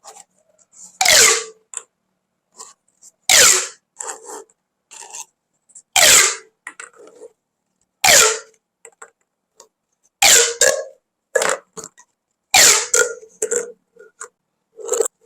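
Corrugated plastic pop tubes being stretched and squeezed, giving loud ribbed rasps about every two seconds, several with a tone that slides down. Smaller crackles come between the rasps.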